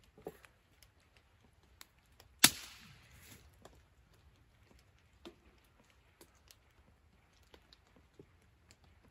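One sharp crack about two and a half seconds in, then light, scattered clicks and knocks of hands working at a small metal camp stove.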